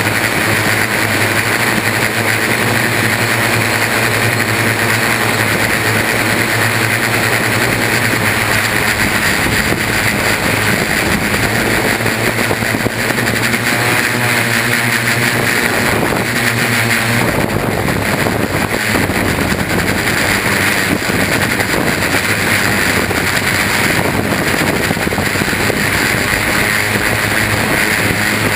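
Brushless motors and propellers of a Y6 coaxial hexacopter running steadily in flight, a whirring hum with a rushing hiss, as picked up by a GoPro hardmounted to the frame. A little past halfway the pitch wavers up and down with throttle changes, then the hum turns to a rougher rush.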